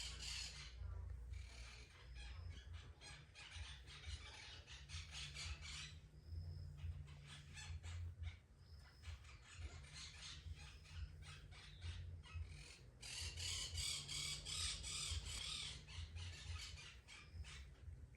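Cat grooming itself: quick rasping licks of the tongue over its fur, coming in runs of several seconds with short pauses between, over a low steady hum.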